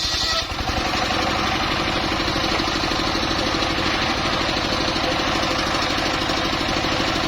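Engine of a homemade circular-saw mobile sawmill running steadily at low speed with an even pulse; a higher hiss over it cuts off about half a second in.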